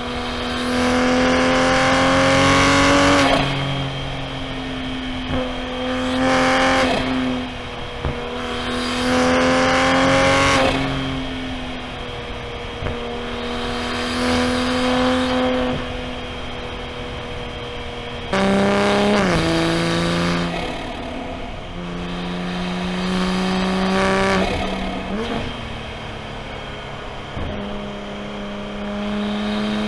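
A90 Toyota Supra's turbocharged B58 3.0-litre inline-six, heard from inside the car, pulling in about five bursts of throttle on a winding drive. Each time the engine note climbs and swells, then eases off. About two-thirds of the way through, the pitch drops sharply before it picks up again.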